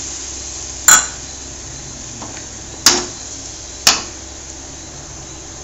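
A slotted steel ladle clinking sharply against the side of a metal kadai three times while tamarind-water gravy is stirred, over a steady hiss.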